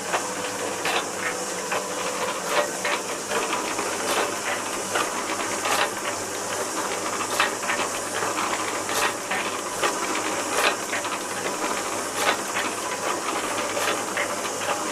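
1945 MacEwans LBG100 bore pump running under pressure, with its top leather washer newly replaced and no longer leaking. A steady hiss runs throughout, with a regular clanking knock about every 1.6 seconds as the pump works through its stroke and lighter clicks in between.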